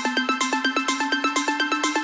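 Background music: a fast, even figure of repeated notes, about eight a second, over a held low note that slowly rises in pitch.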